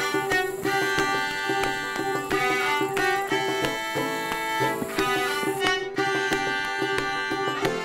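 Instrumental background music of string instruments, with a run of plucked and held notes.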